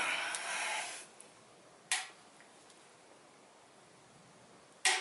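A hard exhale of effort while pulling a torque wrench on a 6.7 Cummins main-stud nut. About two seconds in comes a single sharp click, the torque wrench breaking at the 125 ft-lb setting. Another sharp click comes near the end.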